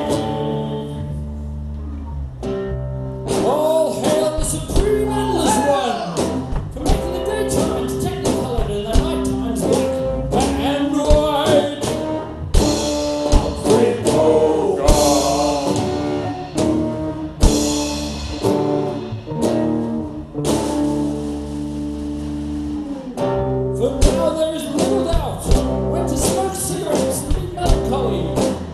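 Live band playing: drum kit, acoustic guitar and electric guitars, with sharp drum and cymbal hits throughout.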